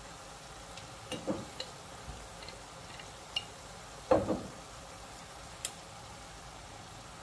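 Stir-fried noodles and vegetables sizzling quietly in a pan while a wooden spatula and a metal spoon knock and scrape against it: a couple of knocks a little over a second in, a few light clicks, and the loudest knock about four seconds in.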